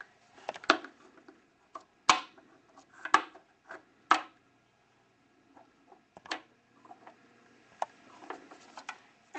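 Plastic magic cups being handled and set down on a tabletop tray: about half a dozen sharp knocks with smaller clicks between them, the loudest about two and four seconds in.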